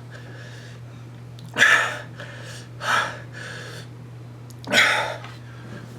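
A man breathing in three sharp, hard breaths, each about half a second long, under the burn of a superhot chili chocolate. A steady low electrical hum runs underneath.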